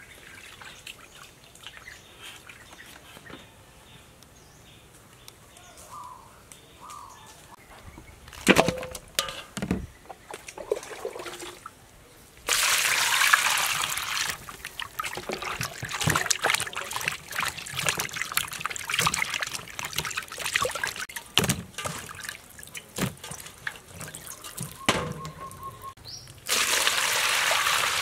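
Water poured from a plastic scoop over raw chicken legs and potatoes in a steel basin of water, splashing as they are rinsed and rubbed by hand. There are two loud, steady pours, one about halfway through and one near the end, with sloshing and splashing between them. A few knocks come before the first pour.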